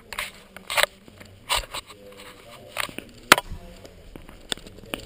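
Irregular sharp knocks and short scuffs, roughly one or two a second: fencers' footwork on the floor and handling knocks of the épée guard carrying the camera.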